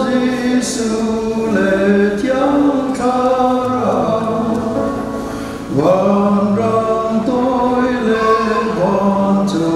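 A choir singing a slow hymn, its phrases made of long held notes, with a new phrase coming in about six seconds in.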